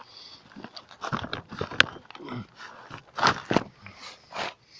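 Scuffing, rustling and crunching of a person crawling over plastic tarps in a cramped crawl space, with one sharp click about two seconds in and a few louder scrapes near the three-second mark.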